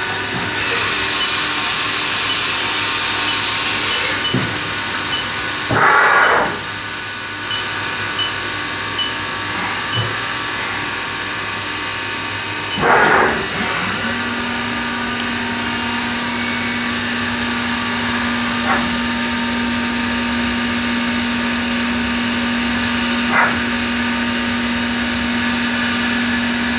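2005 Haas Mini Mill CNC vertical mill running with a steady machine hum and whine. There are two short, loud bursts of noise about seven seconds apart. About halfway through a new steady low hum comes in and holds.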